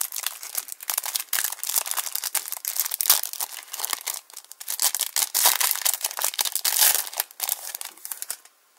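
Foil wrapper of a Topps Match Attax trading-card booster pack being torn open and crinkled by hand: a dense crackling that stops shortly before the end.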